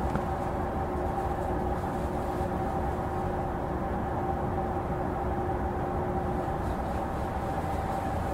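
Steady hum and whine of an E233-0 series electric train's onboard equipment while it stands at a station waiting to depart, heard inside the car. A lower tone in the hum drops out about six and a half seconds in.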